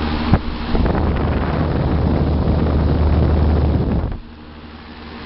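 A 1980s Trane Executive air-conditioner condensing unit running in cool mode: its condenser fan blows with a steady low compressor hum, and the fan's air rushes over the microphone. The sound drops sharply to a much quieter hum about four seconds in.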